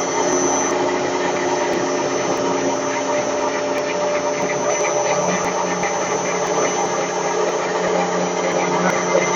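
Screw rotor milling machine running with a steady hum.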